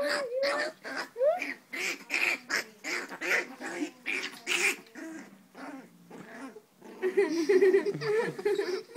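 Chihuahua puppy growling and yipping in short calls while play-biting a hand, with a longer, louder wavering growl near the end.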